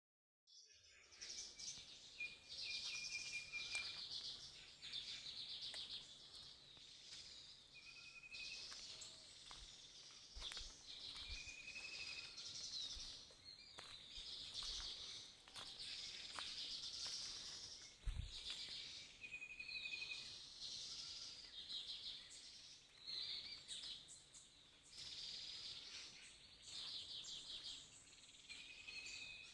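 Several birds chirping and trilling together, with a repeated short whistled note every few seconds among the chatter. A single low thump about 18 seconds in.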